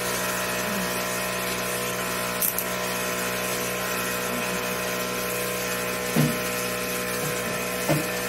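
Hantop portable milking machine's electric vacuum pump running with a steady hum while milking a dairy goat, with a few brief knocks near the middle and end.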